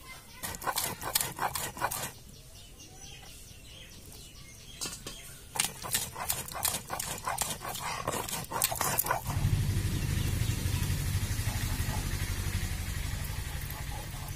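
Stone grinding roller rubbed back and forth on a flat stone slab (shil-nora), crushing beetroot into paste: quick rasping scrapes in two spells. After about nine seconds a steady low rumble with hiss takes over.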